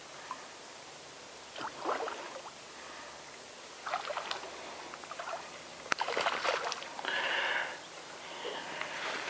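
Spinning reel being worked on a fishing rod: short spells of clicking and rattling, three or four times, with a brief steady buzz near the end.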